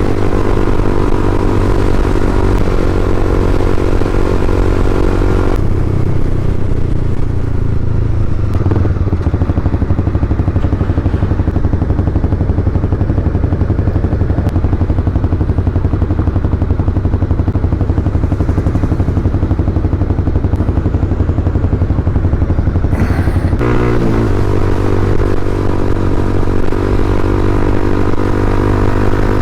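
Honda CBR300R's single-cylinder engine running under way. Its steady note turns rougher about six seconds in, and the steady note returns about six seconds before the end.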